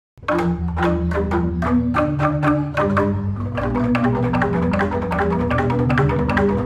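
Jegog, the Balinese gamelan of large tuned bamboo tubes struck with mallets, starts playing a piece just after the start: ringing struck notes over deep, sustained bass tones, the strokes growing quicker after about three seconds.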